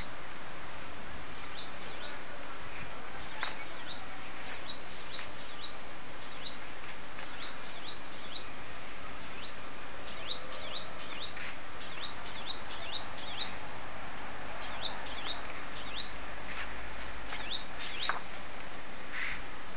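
Birds chirping: many short, quick chirps scattered throughout and thicker in the second half, over a steady background hiss.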